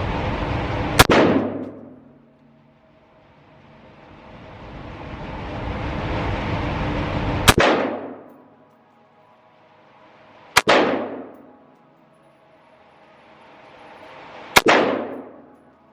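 Four single gunshots from an 11.5-inch BCM AR-15 pistol, a few seconds apart, each ringing out with echo in an indoor range.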